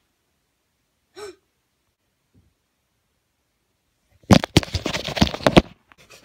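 Handling noise on a phone's microphone: a loud burst of knocks and scrapes lasting about a second and a half as the phone is moved, after a short faint blip about a second in.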